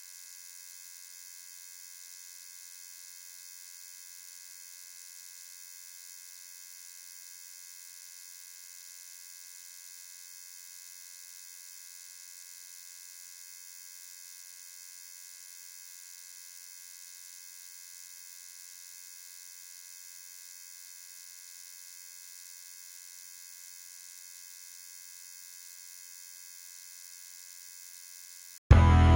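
Steady, faint high-pitched hiss with fine whining tones and no low end, unchanging for nearly half a minute. Just before the end it cuts off and loud rock music with guitar begins.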